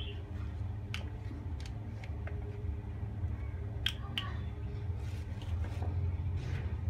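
Honey poured from a plastic cup onto soft soap ingredients in a clay pot: a few light clicks and soft sticky sounds over a steady low hum.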